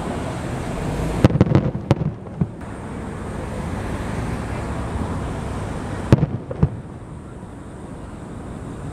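Aerial fireworks shells bursting: a quick run of sharp bangs about a second in, then another cluster of three bangs about six seconds in, over steady background noise.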